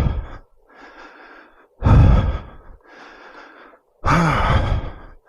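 A man breathing hard, winded from climbing a long flight of stairs: three loud exhales about two seconds apart with quieter inhales between, the last one voiced like a groan.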